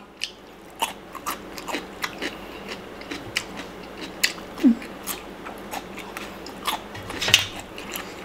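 Close-up eating sounds of a person chewing a pickled garlic clove and raw baby carrot: irregular crisp crunches, roughly two a second.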